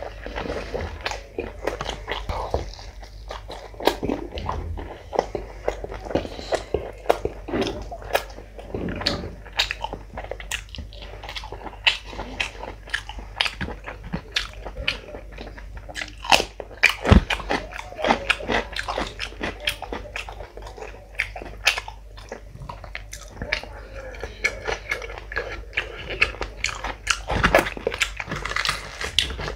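Close-miked eating: a man chewing and biting with wet smacking mouth sounds, mixed with crunchy bites into a whole raw cucumber. The bites come as frequent, irregular sharp clicks.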